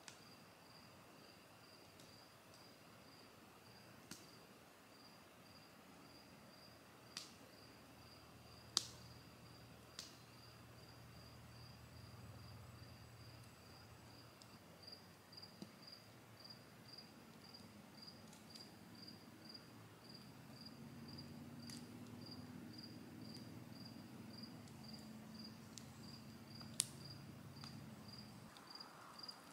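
A cricket chirping steadily, about two chirps a second, with a few sharp pops from the wood campfire. A faint low drone comes in during the second half.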